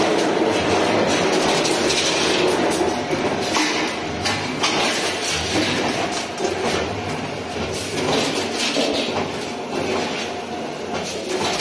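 2D automatic servo wire bending machine running: a steady mechanical clatter with frequent irregular clicks and knocks.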